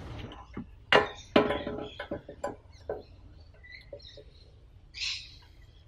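Gloved hands handling a plastic fuel cap and thin nylon fishing line at a car's metal fuel door: scattered clicks and knocks, two sharper ones about a second in, then lighter ticks and rustles.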